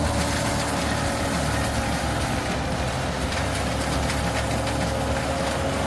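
Heavy engine of a tree-mulching bulldozer running steadily, a low rumble with a constant hum.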